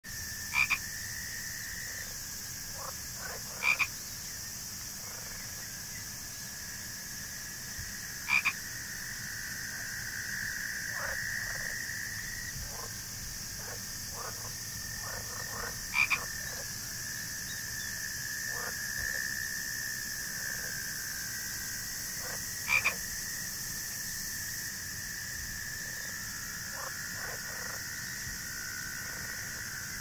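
Frogs croaking over a steady swamp chorus. Loud close croaks come five times, each a quick double call, with softer croaks scattered between.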